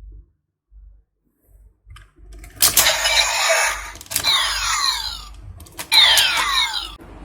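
Kamen Rider W Double Driver toy belt playing its electronic transformation sound effects: after a short pause, sharp clicks each set off a loud burst of noisy electronic sound with sweeping pitch glides, twice.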